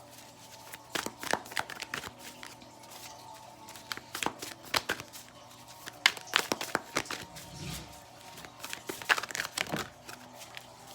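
Tarot cards being shuffled and handled: quick, irregular slaps and rustles of card stock, with soft background music underneath.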